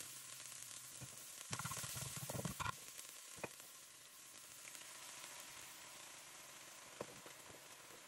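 Minced garlic and shallots sizzling in hot oil in a nonstick frying pan. The sizzle is louder for the first few seconds, then settles to a quieter, steady hiss.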